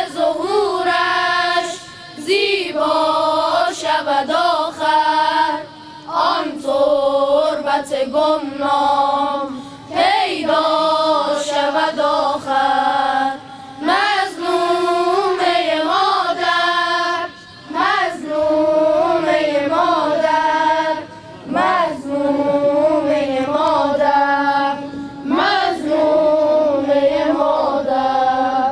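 Boys' choir singing a devotional eulogy song together through a microphone, in phrases of a few seconds with short breaks between.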